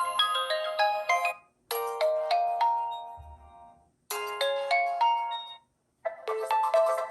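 Oppo A17 stock ringtones playing. One tune ends about a second and a half in, then a short melody plays twice with brief silences between. A new, fuller ringtone starts near the end.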